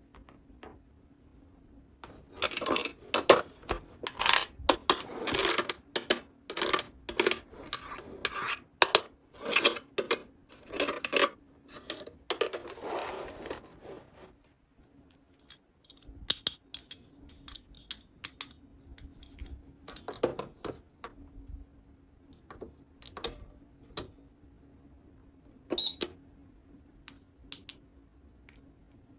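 Small plastic toy pieces being handled and set down: a dense run of clicks, taps and rustling for the first half, then sparser single clicks and taps.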